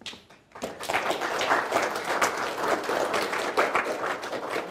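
Audience applauding, many hands clapping, building up within the first second.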